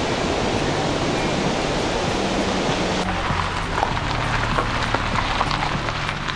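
Background music with low sustained notes over a steady rush of water.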